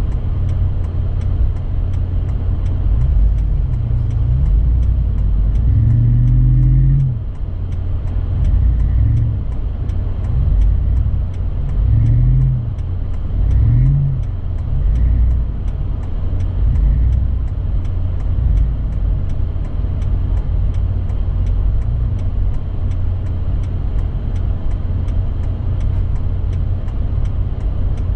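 A car engine running over a steady low rumble, revving up and down several times in the first half, with a faint regular ticking throughout.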